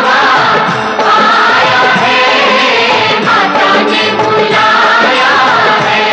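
Hindi devotional song to the Mother Goddess (a Mata bhajan) playing: a singing voice over instrumental accompaniment.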